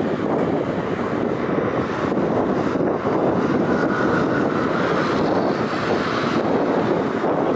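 Boeing 787-9 jet engines on a landing approach: a steady rumble, with a faint high whine for a couple of seconds in the middle.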